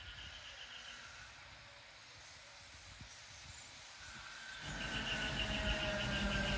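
Irish Rail 8100 class DART electric train approaching along the rails: a high, pulsing whine with a steady lower tone beneath it. About two-thirds of the way in, a rumble of wheels on rails comes up and the whine returns louder as the train nears.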